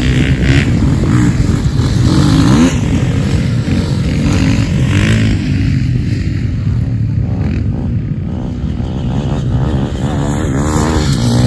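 Several off-road dirt bike engines revving hard as the bikes accelerate away together from a race start, with overlapping engine notes rising and falling in pitch as the riders shift.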